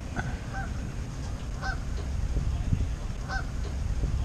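Storm wind buffeting the microphone, a steady low rumble, with a short honking call repeating about every second and a half.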